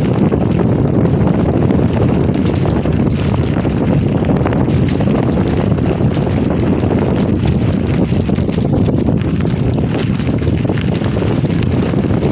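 Wind noise on the microphone of a moving bicycle, with the tyres rolling over a gravel and dirt trail: a steady rumble with many small clicks.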